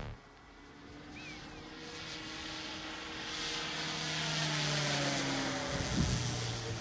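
Electric-powered 35% Extra 330SC RC aerobatic plane flying over, heard as the drone of its 27-inch propeller driven by an electric outrunner motor. The drone swells from faint to its loudest about five seconds in, its pitch sliding down a little as the plane passes, then eases off. A soft low thump comes near the end.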